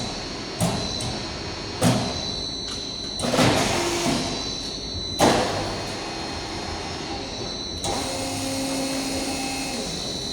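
CNC sheet-metal folding and slitting machine running, with a steady high whine. A few sharp clanks and short bursts of mechanical noise mark its moves, and a low steady hum holds for a couple of seconds near the end.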